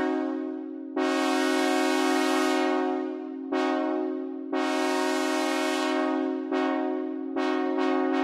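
Synthesized multi-chime train horn sounding a steady chord, re-sounded in a pattern of long and short blasts: a long one about a second in, a short one, another long one, then a quick run of short blasts near the end.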